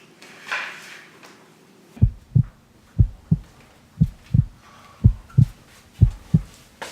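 Heartbeat sound effect: slow paired low thumps (lub-dub), about one beat a second, starting about two seconds in after a short rustle.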